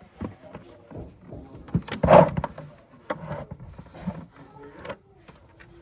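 Hard plastic parts of a Roomba charging station knocking and clattering as a piece is slid into place, with one loud thunk about two seconds in.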